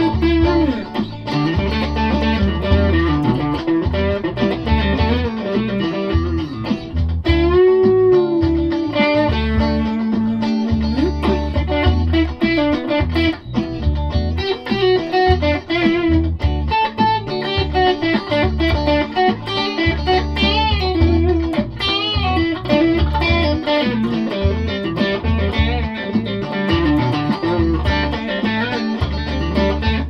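Electric guitar played through an amplifier: continuous playing with low notes underneath and bent, wavering lead notes, the widest bend about eight seconds in.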